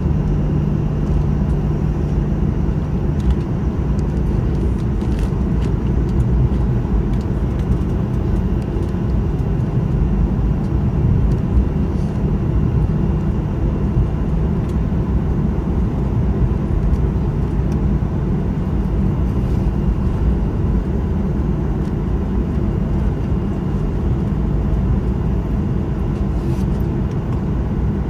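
Steady low rumble and hum inside the cabin of a Boeing 737-900ER taxiing after landing, its CFM56-7B engines at idle, with a few faint rattles.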